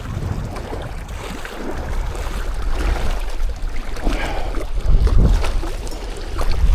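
Gusting wind buffeting the microphone, with a few faint clicks and knocks over it.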